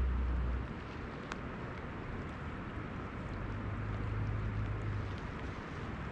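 Steady rain falling on a lake surface, with a few sharper drop ticks. A low hum stops under a second in, and another low hum comes and goes in the middle.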